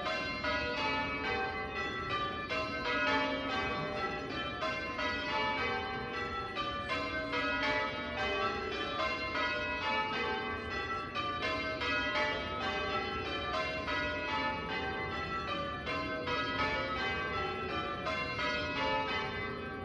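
Church bells change ringing: a steady, even stream of strikes, several bells a second, each ringing on under the next.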